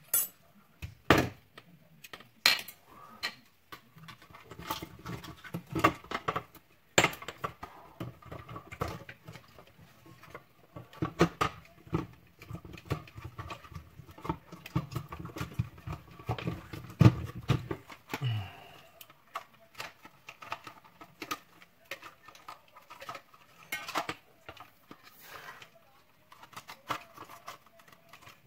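Irregular clicks, taps and rattles of hands handling the parts and wiring of a cordless stick vacuum being fitted with a new motor. There is a dense stretch of rattling in the middle.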